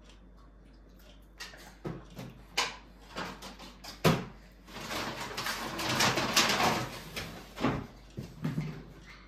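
Knocks and clatter of things being handled, with one sharp bang about four seconds in and a couple of seconds of steady noise after it.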